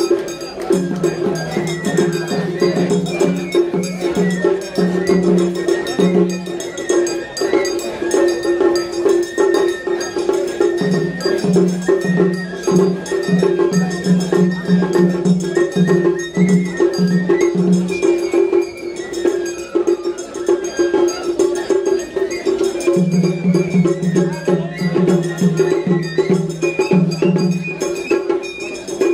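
Japanese festival hayashi music: a small hand gong (atarigane) clanging in a rapid, continuous rhythm under a high wandering bamboo-flute melody, with groups of quick low drum beats over a steady hum.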